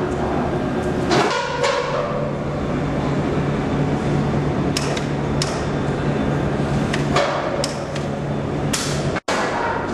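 K-span roll forming machine running with a steady low hum, with a series of sharp metallic knocks at irregular intervals as the steel panel is formed and curved.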